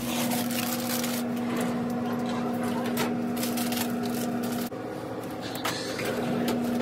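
Plastic snack bags crinkling and rustling as they are handled and pushed into a snack vending machine's spiral coils. Under it runs a steady electrical hum from the vending machines, which dips for a moment about two-thirds of the way in.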